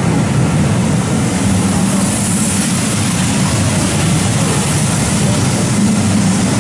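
Passenger coaches of a steam-hauled train rolling past on the departure, wheels on the rails making a steady low rumble. A hiss swells briefly about two seconds in, with steam escaping from under the coaches.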